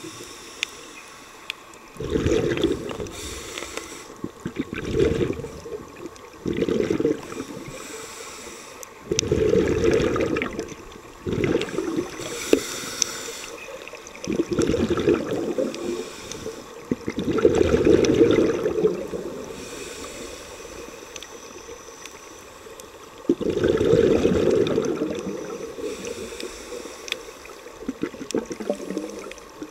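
Scuba diver's exhaled bubbles from a regulator heard underwater: bubbling bursts of a second or two, every few seconds, with quieter stretches of breathing between.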